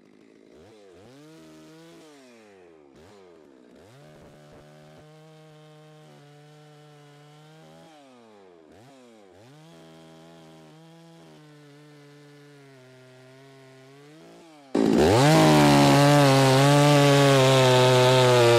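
Perla Barb two-stroke chainsaw warming up: it idles between repeated throttle blips, heard faintly at first. Then for about the last four seconds it runs loud at full throttle.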